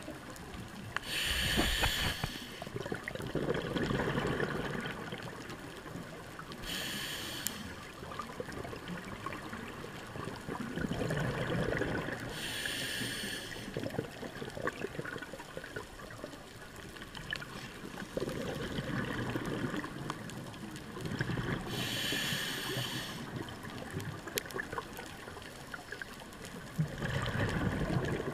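Scuba diver breathing underwater: short hissing draws through the regulator every five to ten seconds, alternating with the low bubbling rumble of exhaled air.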